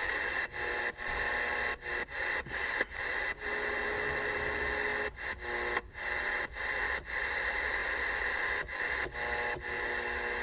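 Cobra 148 GTL CB radio receiving static: a steady hiss with several faint steady whistling tones riding on it, cut by frequent brief dropouts, with no voice coming through. No skip signals are being picked up.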